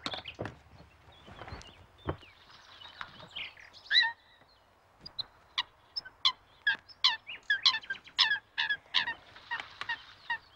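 Birds calling by a pond, probably waterfowl: one loud call about four seconds in, then a quick, regular series of short calls, about three a second, from about five seconds in. A few soft knocks at the start as the carriage horse comes to a halt.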